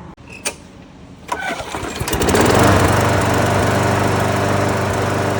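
Walk-behind lawn mower engine pull-started: it catches about two seconds in and settles into a steady run. It runs without the metallic rattle, its blade adapter and blade bolt now tightened down properly.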